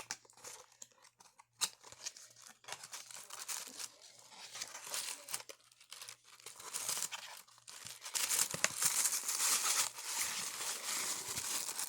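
Toy packaging being torn open and crinkled by hand: scattered crackles at first, then steadier, louder tearing and rustling over the last few seconds.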